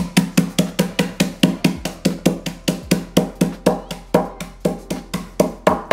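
The bottom of a drinking glass pounding graham crackers in a plastic freezer bag on a wooden countertop, crushing them to crumbs. The strikes come evenly, about three to four a second.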